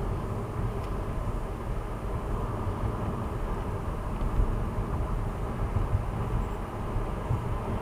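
Car driving along a road, heard from inside the cabin: a steady low rumble of tyres and engine.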